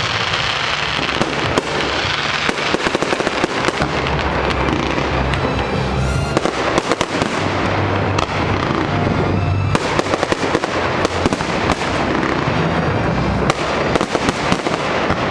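Aerial fireworks going off in a dense, continuous barrage of rapid crackling and popping bursts.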